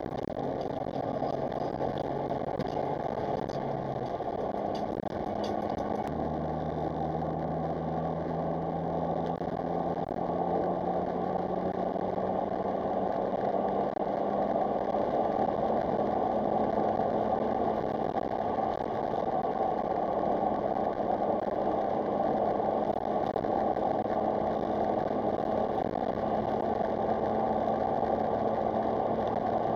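Smart Roadster Brabus's small three-cylinder turbo petrol engine running on the move, over steady road and cabin noise. Its note changes between about four and six seconds in, then climbs slowly. The car is being driven to test for misfires after new coil packs and plug leads.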